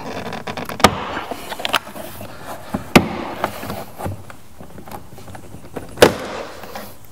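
Door-panel retaining clips on a BMW 6 Series (E63) snapping loose one after another as the panel is pried away from the door with a plastic trim tool, with scraping and rustling of the panel between the snaps. Four sharp snaps stand out, the loudest about three seconds in.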